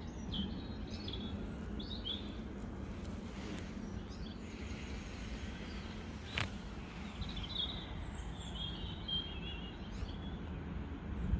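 Wind rumbling on the microphone, with small birds chirping now and then: short high chirps early on and a longer run of chirping between about seven and nine seconds. A single sharp click about six seconds in.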